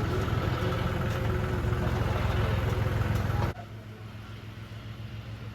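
Tractor engine running steadily at a low idle-like pace. About three and a half seconds in, the sound drops abruptly to a quieter low hum.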